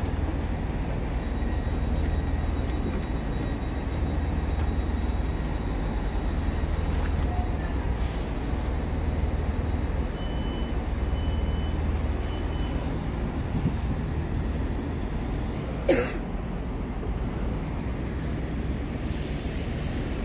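Diesel train idling at a station platform, a steady low rumble. Three short high beeps come about ten seconds in, and a single sharp click a few seconds later.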